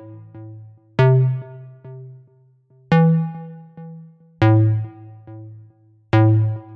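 Background electronic music: a synthesizer chord over a deep bass note, struck four times about every one and a half to two seconds, each ringing out and fading.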